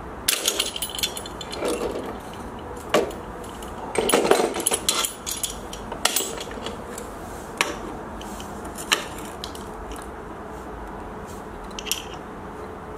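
Metal tools and parts being handled and set down: a dozen or so scattered clanks, knocks and rattles, with a busier run of clatter about four seconds in.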